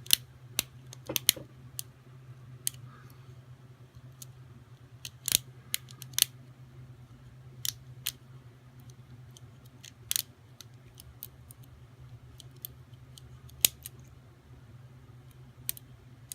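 Lever lock picking tools working inside an Ace 4-lever padlock: scattered sharp metallic clicks and ticks at irregular intervals as the pick wire lifts the levers and the bolt thrower turns. Under it runs a steady low hum.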